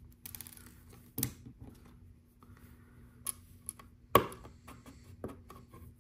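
Small plastic LEGO round tiles clicking and rattling: loose pieces stirred in a pile just after the start, then several sharp clicks as tiles are pressed onto the plate's studs, the loudest about four seconds in.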